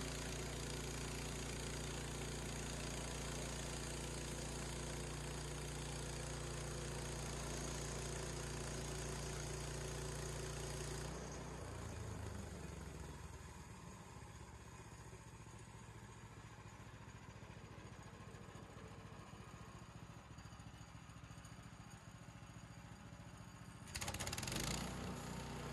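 Gas engine of a Harbor Freight bandsaw sawmill running steadily at speed, then dropping to a lower idle about halfway through. A brief louder burst of sound comes near the end.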